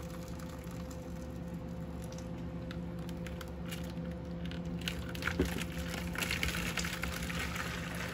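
Hot water poured from a plastic measuring jug into a plastic bowl, splashing and trickling, starting a few seconds in and growing fuller after about five seconds. A steady low hum runs underneath.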